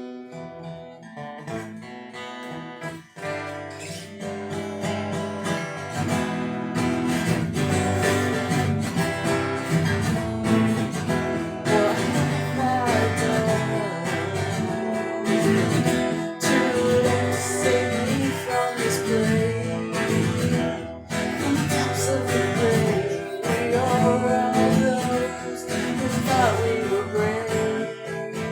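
Acoustic guitar strumming an instrumental passage of a song, starting soft and building to a full, loud strum after about five seconds.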